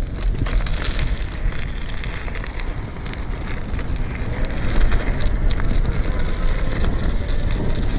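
Bicycle tyres crunching over a loose gravel path, a dense run of small crackles, with wind rushing across the microphone.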